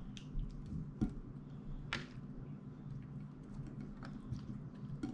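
Hands working raw chicken pieces around in a wet marinade in a ceramic bowl: scattered soft wet clicks and taps, a few seconds apart.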